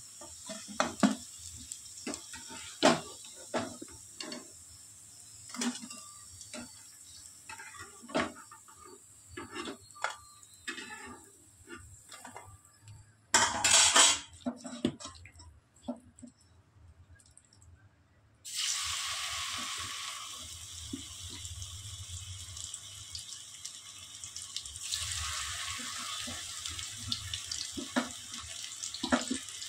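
Dishes and metal utensils clinking and knocking in a kitchen, with one short loud burst of noise about halfway. Near two-thirds of the way in, a tap is turned on and water runs steadily into a sink, with a few more clinks near the end.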